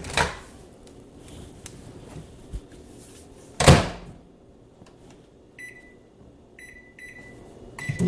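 Over-the-range microwave oven door pushed shut with a loud latch knock, then a few short keypad beeps as the one-minute cook time is entered.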